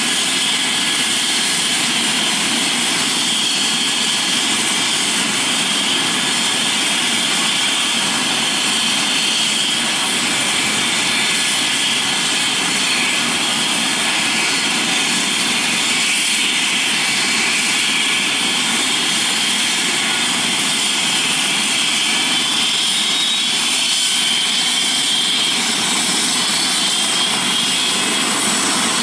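Eurocopter EC135 rescue helicopter running on the ground before lift-off: twin turbines and rotor turning at a steady speed, a constant high turbine whine over the rotor and exhaust noise.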